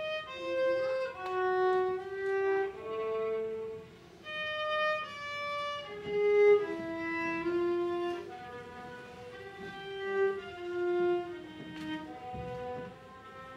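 Violin playing a slow melody of long held notes, with a short break about four seconds in.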